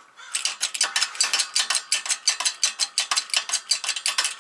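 Shop press working to push a freshly pressed-in wheel bearing back slightly, so that its retaining clip can seat. The press gives a fast, even metallic clicking, about nine clicks a second.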